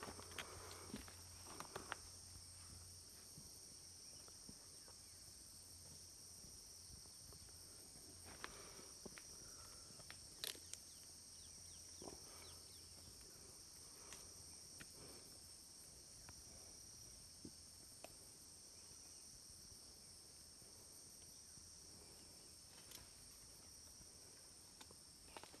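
Faint, steady high-pitched chorus of insects in forest, with a few scattered faint clicks and rustles, busier in the first couple of seconds.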